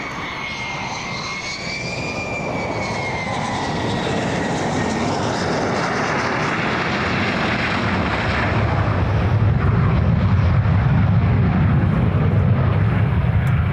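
F-35A Lightning II's Pratt & Whitney F135 jet engine on landing approach, growing louder as it nears. A high whine bends in pitch over the first few seconds and fades, then a deep rumble builds and is loudest over the last few seconds.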